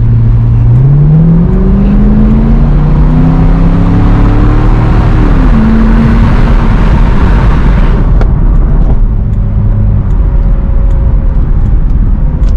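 C6 Corvette V8 running through a Borla Stinger cat-back exhaust with X-pipe, pulled hard under acceleration. The engine note climbs for about five seconds, drops sharply with an upshift and holds, then the throttle eases off about eight seconds in and it settles to a low, steady cruise.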